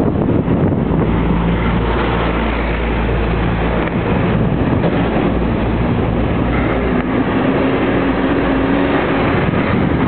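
Wind buffeting the microphone of a moving bicycle, over a motor vehicle's engine running close by, its pitch rising about seven seconds in.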